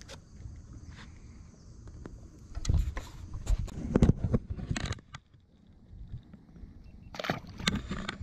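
Knocks and footsteps on the deck of a small fishing boat, with an uneven low rumble of wind on the microphone, and a splash in the water near the end.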